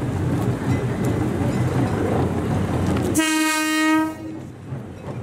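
Diesel limited express train at a station: a low diesel engine rumble, then about three seconds in a single loud horn blast of just under a second.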